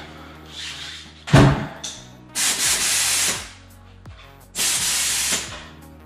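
A thump about a second in, then two bursts of compressed air hissing, each about a second long, at the valve of a freshly seated tubeless bicycle tyre while its pressure is set.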